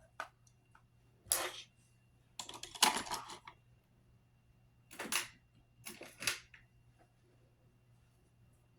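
Clicks, taps and short scrapes from handling a setting-powder container and makeup brush, in about five brief clusters with quiet between them.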